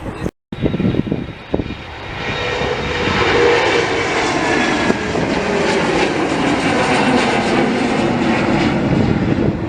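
Airliner's engines passing close overhead: after a brief cut near the start, the engine noise swells about two seconds in and holds loud and steady.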